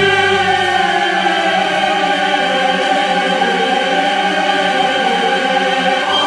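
Background music holding one long sustained chord, with no break, in a dramatic opera-like style.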